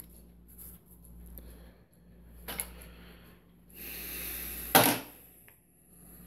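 Handling noises: a light knock, a short rustle, then one sharp knock, the loudest sound, about five seconds in.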